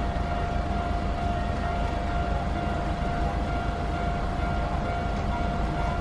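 Japanese railway level crossing warning alarm sounding a steady tone while the crossing is closed, over a low rumble.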